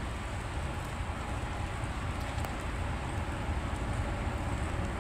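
Freight train's diesel locomotives approaching, a steady low rumble that grows slowly louder.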